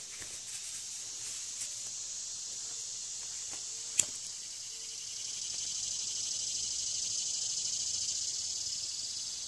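A disposable lighter clicks sharply once, about four seconds in, over a steady high-pitched insect buzz that swells a little in the second half.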